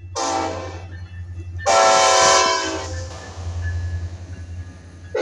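Metra diesel locomotive's air horn sounding for a road grade crossing: a short blast, then a longer, louder blast about a second and a half later. A steady low rumble of the passing train runs underneath.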